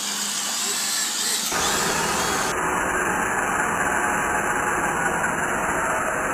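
Electric motors of 1/16-scale Traxxas RC cars whining high and wavering up and down as they rev. About a second and a half in, the sound cuts abruptly to a steady, dense rushing noise.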